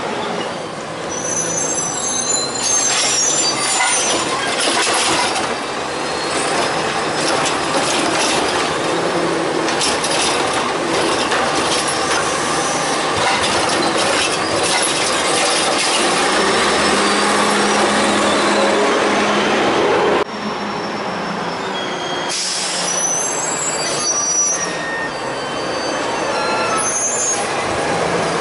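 A CCC LET2 garbage truck running on the street as it pulls up and works its Heil Rapid Rail automated side arm at a cart, with high squeals from its brakes. The sound breaks off abruptly about twenty seconds in and goes straight on with more of the same truck noise.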